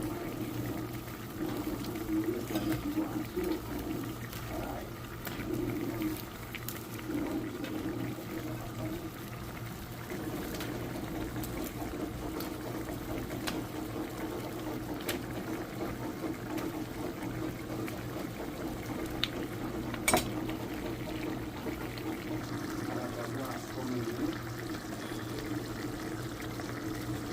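Brown stew fish simmering in a pot, a steady bubbling, with a low steady hum beneath and a sharp tick about twenty seconds in.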